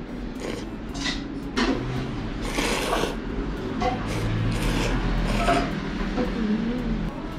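Noodles slurped in several short, noisy pulls, over a low steady hum.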